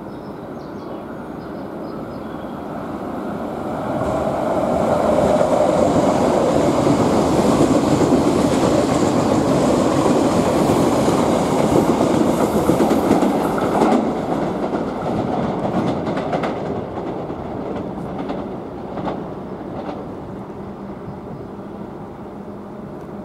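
Odakyu 60000 series MSE Romancecar rolling past along the platform, wheels running on the rails. It builds as the train nears, is loudest for about ten seconds mid-way as the cars go by, then fades.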